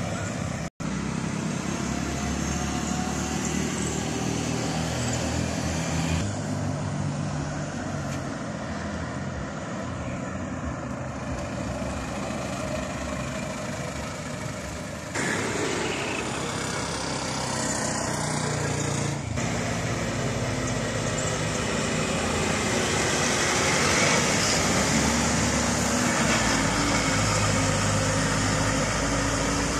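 Road vehicles driving past on a hairpin bend one after another: a pickup truck, a van, then a bus whose engine is the loudest, in the last third. The sound cuts out briefly about a second in and changes abruptly a few times where clips are joined.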